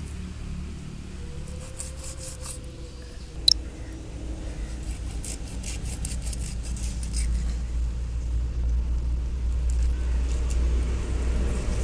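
Knife scraping and cutting a tilapia on a wooden chopping block: scattered short scrapes and one sharp click about three and a half seconds in. Under it runs a steady low rumble that grows louder in the second half.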